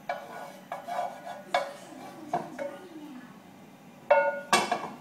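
A cooking utensil knocking and scraping in a non-stick frying pan, a string of separate clinks. Near the end come two louder, ringing clanks of the pan being moved.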